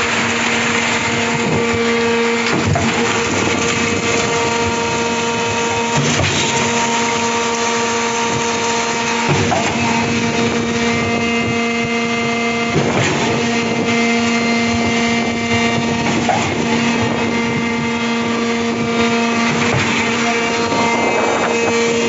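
Electric concrete pump running with a steady hum, and a knock about every three and a half seconds as the pumping pistons change stroke.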